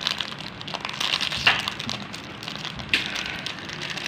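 Plastic biscuit packet crinkling and crackling as hands tear it open, with louder crackles about a second and a half in and again near three seconds.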